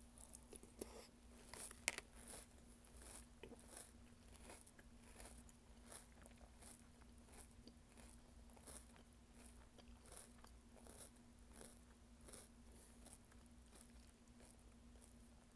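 Faint, irregular crunching of a person chewing mouthfuls of mini toast cereal soaked in plant milk, with one louder crunch about two seconds in.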